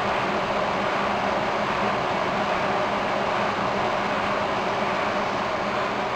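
Sun Fire server running, its cooling fans and spinning fibre channel drives giving a steady whooshing noise with a faint low hum.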